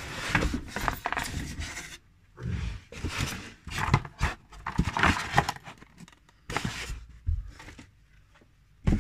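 Cardboard box and its packaging being handled and opened: irregular rustling, scraping and light knocks in bursts, with a pause near the end.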